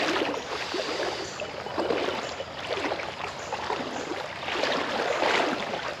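Water sloshing and swishing as someone wades through a shallow river, in a few slow surges.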